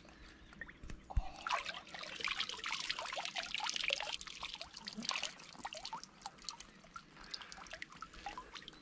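Water splashing and dripping around a large carp held up in the lake by hand. It is busiest between about one and a half and five and a half seconds in, then thins to lighter drips and trickles.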